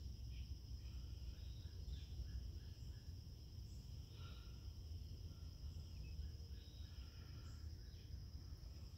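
Insects trilling steadily in a continuous high-pitched tone, with faint short chirps scattered through it over a low outdoor rumble.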